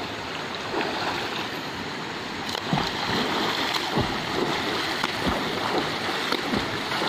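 River water rushing steadily over a shallow stony bed, with a few water splashes and low thuds along the way.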